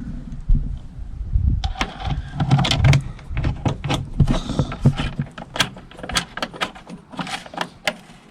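Irregular clicks, knocks and light rattles of a tail-light assembly's bolts and plastic parts being handled and fitted by hand, several a second.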